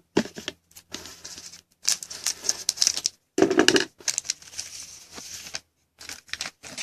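A trading card pack's wrapper being torn open and crinkled, with cards shuffled in the hand, in several crackling bursts.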